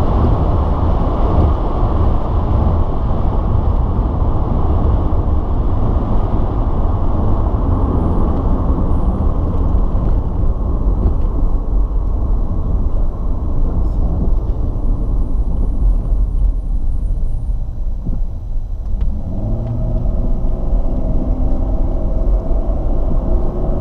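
A car's V6 engine and road noise, heard from inside the cabin while driving: a steady low rumble. Near the end the rumble eases and a smoother engine hum with a clear pitch comes through.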